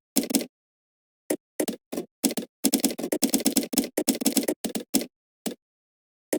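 Typing on a computer keyboard in irregular bursts of keystrokes: a few scattered strokes, then a fast run of typing, then a couple of single key presses, with silent pauses in between.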